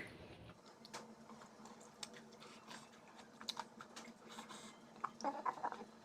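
Faint, scattered clicks and small smacks of someone eating and chewing close to the microphone, over a low steady hum.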